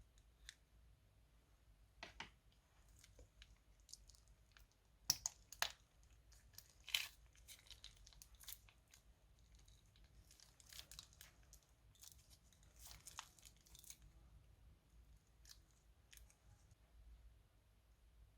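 Crunchy slime in a plastic piping bag being squeezed and handled, giving faint scattered crackles and crinkles. The loudest few come about five to seven seconds in.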